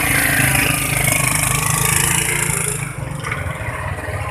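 Motor scooter engine running steadily, with a change in the sound about three seconds in.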